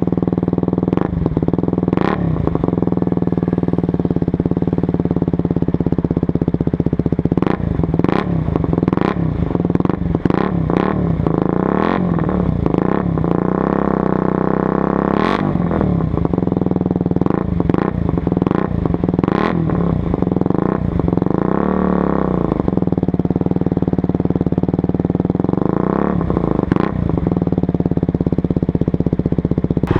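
KTM Duke 125's single-cylinder four-stroke engine running through a LeoVince GP-style aftermarket exhaust, holding a steady note with a brief rise and fall in pitch about two-thirds of the way in. Sharp irregular clicks are scattered through it.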